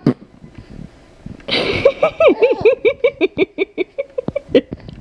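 A 14-week-old baby laughing: a quick run of short, high-pitched pulses, about five a second. It starts about a second and a half in and stops just before the end.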